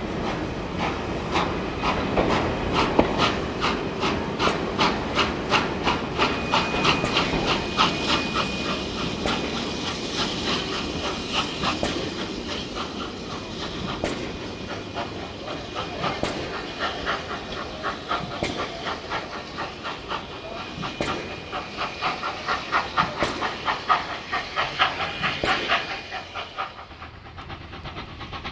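NSW 59 class steam locomotive 5910 working a train, its exhaust chuffing in an even rhythm of about two beats a second with a steam hiss behind it. The beats come faster again later on, then fall away near the end.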